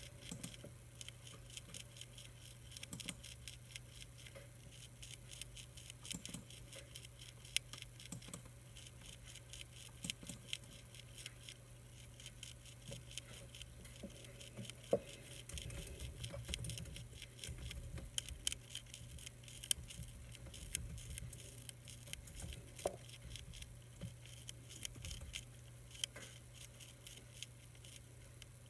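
Monarch caterpillar chewing a milkweed leaf: a faint, rapid crackle of tiny clicks, over a low steady hum.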